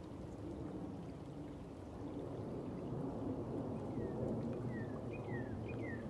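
Flowing stream water, a steady low rushing. About four seconds in, a bird starts a series of short, falling whistled calls.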